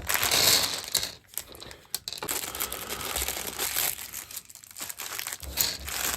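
Plastic Lego parts bags crinkling as they are handled, with small clicks, loudest about half a second in.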